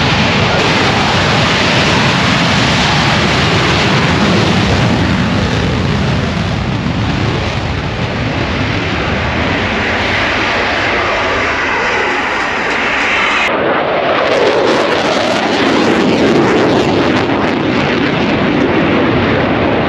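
A pair of F-35A Lightning II fighters taking off, their Pratt & Whitney F135 turbofans producing a loud, continuous jet roar. The sound changes abruptly about two-thirds of the way through, into a deeper rumble as the jets climb away.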